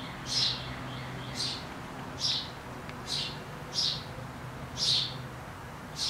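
A bird chirping over and over: seven short, high chirps, each falling in pitch, about one a second. A faint steady low hum lies underneath.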